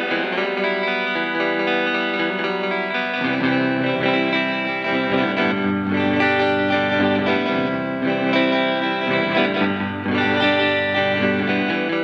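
Electric guitar played through a Fender Reflecting Pool delay and reverb pedal, its notes ringing on into overlapping echoes. Lower notes join about three seconds in.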